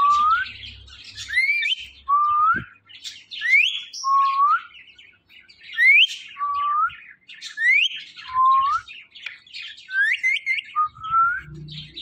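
Caged green parrots calling. A pair of whistled notes repeats about every two seconds, a quick rising whistle followed by a lower note that rises slightly, over scratchy chirping. Near the end there is a quick run of short rising notes.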